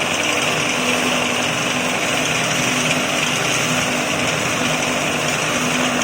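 KM BR03 bread-crumb grinding machine running: a loud, steady whirring noise with a faint even hum underneath.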